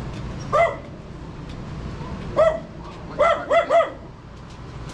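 Small dog barking: a single bark, another about two seconds later, then three barks in quick succession.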